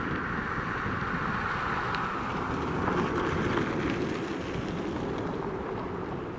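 Embraer 195 airliner's twin GE CF34-10E turbofans at takeoff thrust as it climbs away: a steady jet rumble. About three seconds in, the sound swells slightly and settles lower in pitch, then eases off as the aircraft recedes.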